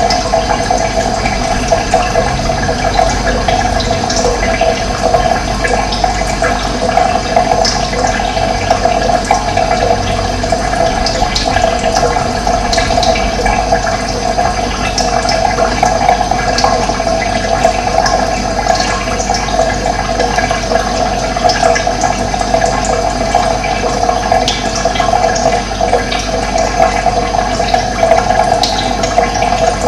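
Running water, a steady rushing flow, with short high bird chirps here and there.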